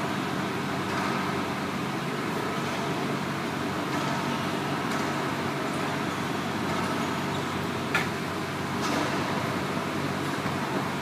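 Racquetball doubles rally: scattered faint thwacks of the ball off racquets and walls, with one sharper crack about eight seconds in. A steady background hum runs under them throughout.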